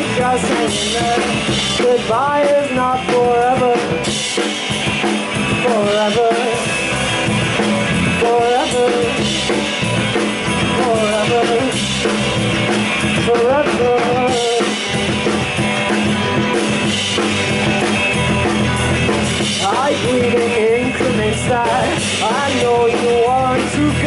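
Live rock band playing loudly and steadily: drum kit, electric bass and electric guitars, with a wavering melody line coming and going over the top.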